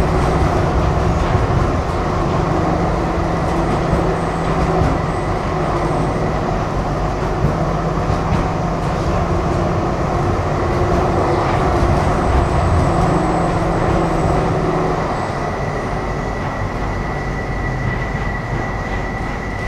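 Tram running on its rails, heard from inside the car: a steady rumble of wheels and car body with the hum of the electric drive, which drops away about fifteen seconds in. A thin high-pitched tone grows stronger near the end.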